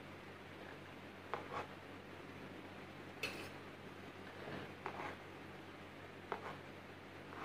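Faint scrapes and light clicks of a long metal knife spreading whipped cream over a sponge cake layer on a cake turntable: a handful of short strokes a second or two apart, the sharpest about three seconds in.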